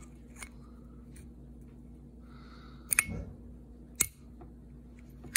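Plastic and metal parts of a disassembled 12-volt automotive circuit breaker clicking as they are handled by hand: a few faint ticks, then two sharp clicks about a second apart past the middle. A faint steady low hum runs underneath.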